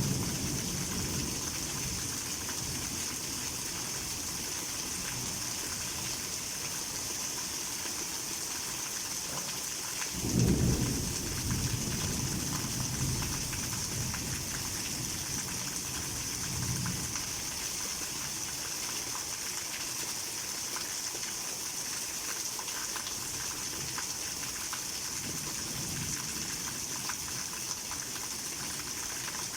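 Heavy rain falling steadily with a constant hiss, with thunder rumbling. A louder thunder peal comes suddenly about ten seconds in and dies away over a few seconds, with fainter rumbles later.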